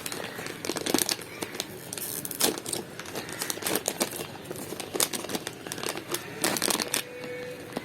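Chocolate wrappers and plastic packaging crinkling as they are handled, in irregular crackles.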